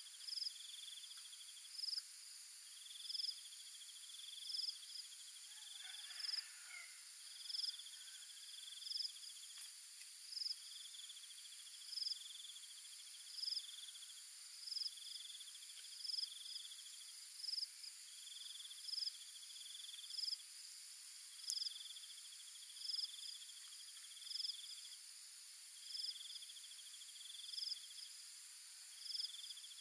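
Insects chirping in a steady repeating pattern: a short high chirp about every second and a half, alternating with a lower pulsed trill about a second long, over a constant high-pitched insect drone.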